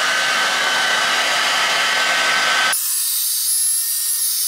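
A hand-held hair dryer blows steadily with a whine. About two-thirds of the way in, the sound changes abruptly: it loses its low part and becomes a thinner, high hiss.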